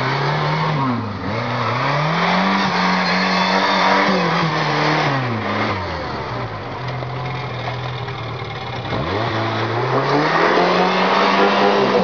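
Engine of an off-road trial 4x4 revving as it crawls through mud. The revs climb and hold high for a few seconds, drop to a lower steady note around the middle, then climb and hold again near the end.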